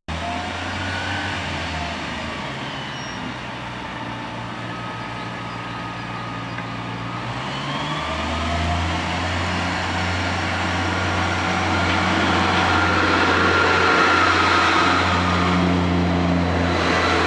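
Diesel train engine running steadily, then revving up about eight seconds in and growing louder toward the end.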